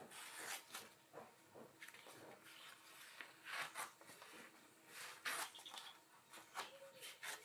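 Blue painter's tape being peeled off a PVC board and a paper sink template crinkling as it is lifted: faint, irregular rasps and rustles, a few louder ones in the second half.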